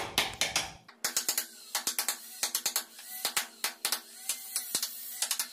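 A hammer tapping a wood chisel in quick, irregular runs of sharp knocks, chiselling out the slot for a sliding-door runner in the edge of a wooden door panel.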